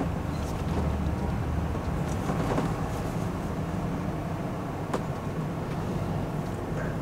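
Class C motorhome engine idling steadily, heard from the cab just after parking, with a single sharp click about five seconds in.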